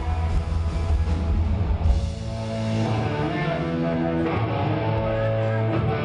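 Live punk rock band played through a club PA and heard from the audience: distorted electric guitars, bass and drums, until about two seconds in the drums and bass drop away and sustained guitar chords ring on.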